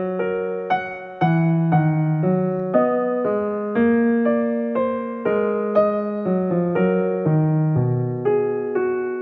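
Background piano music: a gentle melody of single and chorded notes, each struck and decaying, changing about twice a second.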